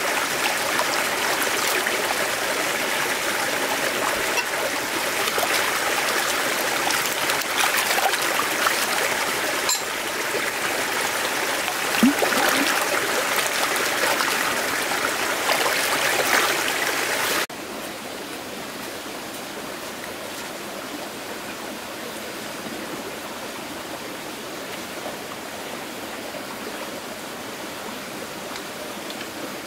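Steady rush of running water. About two-thirds of the way through it cuts off abruptly to a quieter, steady hiss.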